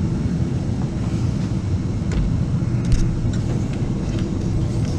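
A steady low background rumble, with a few faint clicks of plastic parts being handled as the old washer dispenser diverter valve is worked loose and pulled out.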